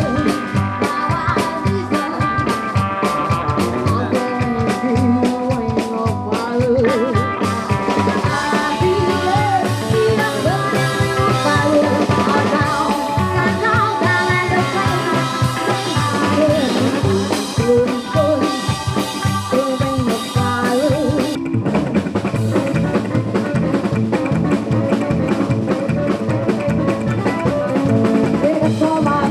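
Rockabilly band playing live, with upright double bass, hollow-body electric guitar and drum kit. The sound changes abruptly about two-thirds of the way through.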